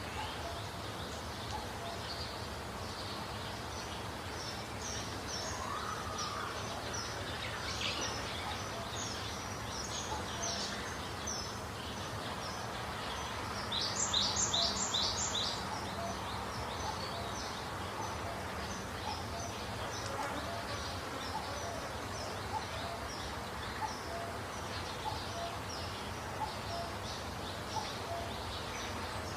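Several birds chirping and singing in quick short notes over a steady outdoor background hiss, with a louder run of four rapid notes about halfway through.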